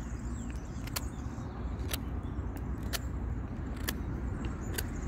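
Cheap survival knife whittling a small wooden stick to a point, each stroke giving a sharp click roughly once a second, over a steady low rumble.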